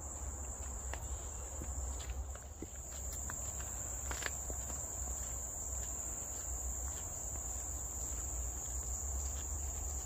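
Steady high-pitched drone of tropical forest insects, with a low rumble underneath and a few faint ticks.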